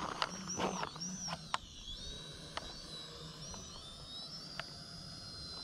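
Small drone's propellers whining at a high pitch that swoops up and down as the throttle changes, then holds steadier, with a few sharp clicks in the first half.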